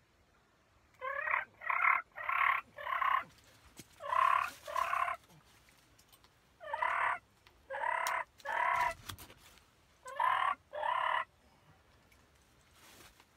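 Wild turkey gobbling repeatedly in short bursts that come in groups over about ten seconds.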